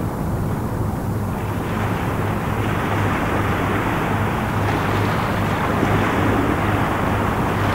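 An OPV54 Flamant-class patrol vessel under way, its engines giving a steady low drone, mixed with the rush of water from its bow wave and wind on the microphone. The rushing grows louder about a second and a half in.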